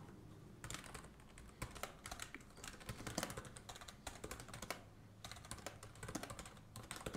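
Faint, irregular typing on a computer keyboard, keys clicking in quick uneven runs.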